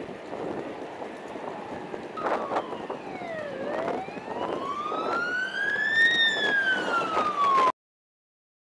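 An emergency vehicle siren wails over road traffic noise. Its pitch falls, climbs slowly and falls again before the sound cuts off abruptly.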